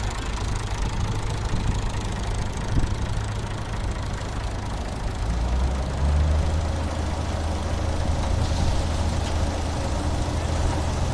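Engine of a wheat harvesting machine running steadily while cutting wheat, with a low hum that grows louder about halfway through.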